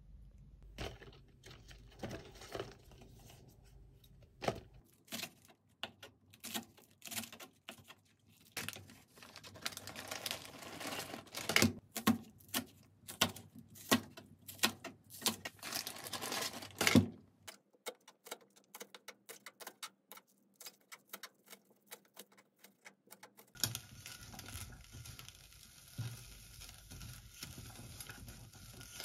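Kitchen knife chopping green onions on a plastic cutting board: a run of quick, sharp taps that grows louder and stops about seventeen seconds in. Near the end, a faint steady sizzle as the chopped green onions are stirred in a pot.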